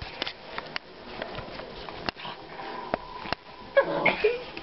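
Small dog snuffling and scrabbling in bedding, with several sharp clicks through the first three seconds and a short, louder sound about four seconds in.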